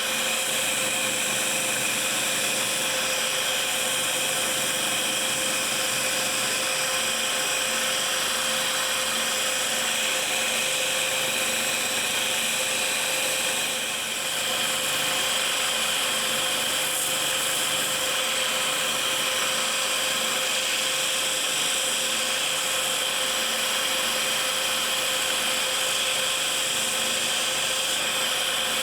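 Electric power tool running steadily with a constant whine and a hiss of grinding or sanding, briefly easing off about halfway through.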